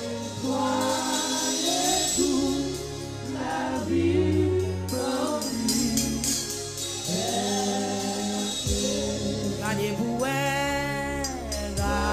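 Gospel hymn sung in chorus, a Haitian Creole kantik.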